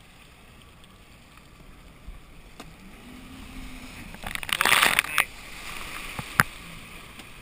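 Jet ski rocking on open sea with water sloshing and a faint engine hum; about four seconds in, a loud rush of spray lasts about a second as another jet ski throws its wake close by, followed by a few sharp knocks.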